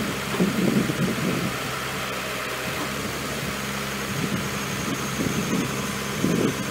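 Truck-mounted crane's diesel engine idling steadily, with men's voices talking briefly near the start and again near the end.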